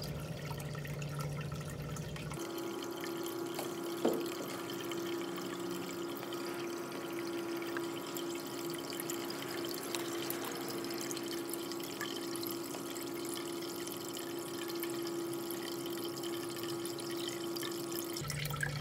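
Water trickling as an aquarium pump fills a grow bucket of hydroton clay pebbles, rising toward the top of the bell siphon, over a steady hum. A single knock comes about four seconds in.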